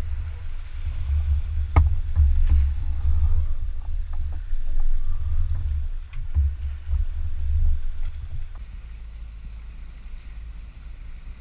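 Wind buffeting the microphone on a sailboat under way in a choppy sea: a loud, gusty low rumble, with a sharp knock about two seconds in. After about eight and a half seconds it drops to a quieter, steady low rumble.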